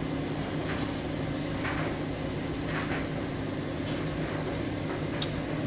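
A steady low machine hum, like a household appliance or fan, with faint short eating sounds about once a second: chewing and mouth smacks from someone eating with their fingers.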